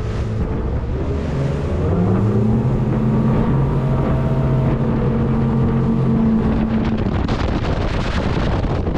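Twin 300 hp outboard motors on a center-console boat throttling up, rising in pitch over the first couple of seconds, then running steadily at speed. Wind buffets the microphone throughout and grows louder near the end, covering the engines.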